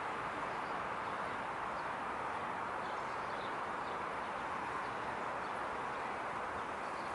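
Steady outdoor ambient noise: an even hiss with no distinct events, and a few faint high chirps.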